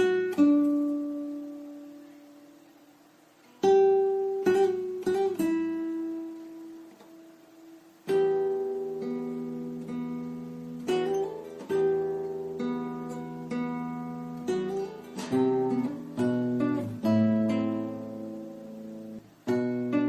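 Background music of a plucked acoustic guitar: single notes and chords that ring and fade, played in short phrases with two brief lulls between them.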